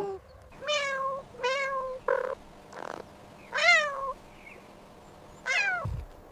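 Domestic cat meowing about four times, each meow a short call that bends in pitch.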